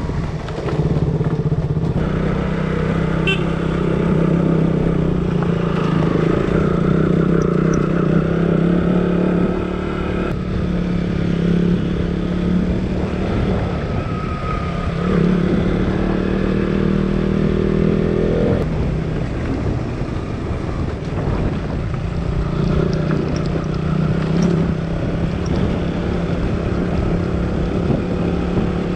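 Motorcycle engine running under load on a climb, the revs rising and then dropping back several times as the rider changes gear.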